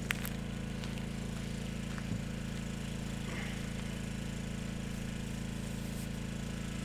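Generator running steadily with an even low hum, with a few light clicks of a metal spoon against a ceramic bowl near the start.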